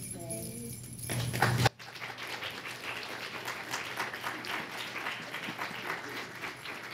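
The tail of a young children's Christmas song with singing and music, cut off suddenly a little under two seconds in. It is followed by an audience clapping for several seconds, thinning toward the end.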